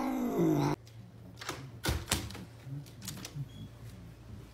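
A cat's drawn-out meow that cuts off abruptly just under a second in. It is followed by a few scattered sharp clicks and taps.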